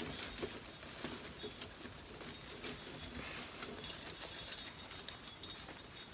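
Faint rustling and scratching of flocked artificial pine branches and wired ribbon as hands push a bow's wire down through a wreath, with scattered small clicks.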